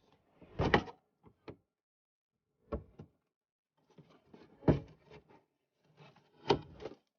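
Plastic wheel-well liner and its retaining clip being pried and pushed aside: a series of knocks and clicks with scraping rubs, the loudest coming about every two seconds.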